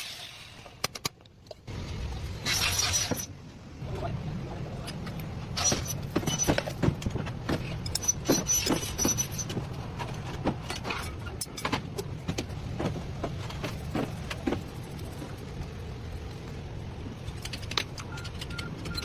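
A steady low hum, with many sharp metallic clicks and clinks scattered through the middle, like small metal parts or keys being handled.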